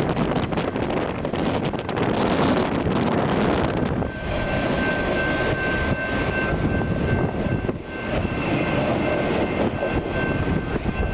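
Freight train of autorack cars rolling past, its wheels rumbling on the rails, with strong wind buffeting the microphone. About four seconds in, a steady high-pitched squeal from the passing train joins and holds.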